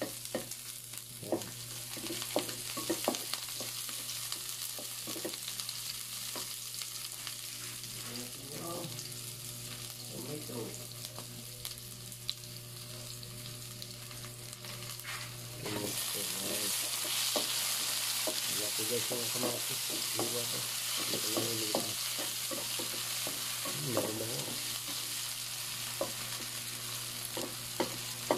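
Garlic and onion sizzling in hot oil in a nonstick wok, with a wooden spatula scraping and stirring now and then. About sixteen seconds in, the sizzle jumps louder as tomato wedges go into the pan.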